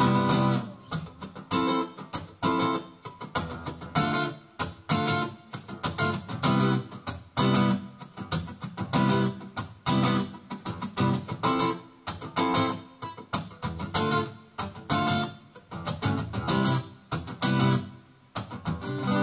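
Acoustic guitar strumming chords in a steady rhythm of about two strokes a second, an instrumental passage of a live song. Near the end a last chord is struck and left ringing.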